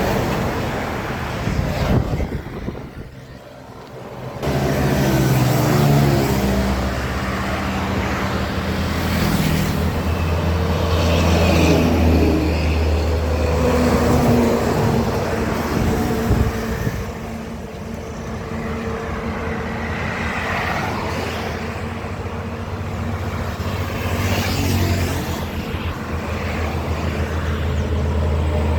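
Road traffic with a heavy truck's diesel engine running, a steady low drone. It drops briefly about two seconds in, then carries on for the rest.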